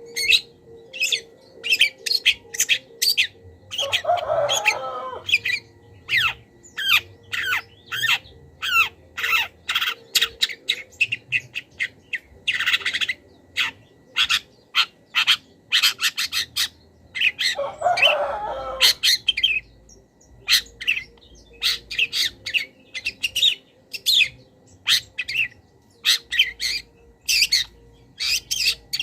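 Long-tailed shrike (cendet) singing a fast, varied run of short, sharp high notes, a song stuffed with mimicked calls of other wild birds. Two harsh, rasping bursts come about 4 and 18 seconds in.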